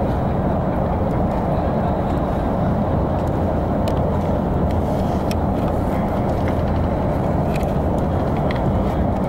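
Steady engine and road noise heard from inside a moving coach bus, with a few faint ticks around the middle.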